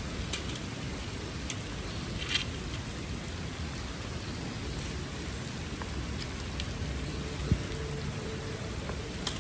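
Steady rain falling, with a few sharp drips or splashes now and then and a single dull thump about seven and a half seconds in.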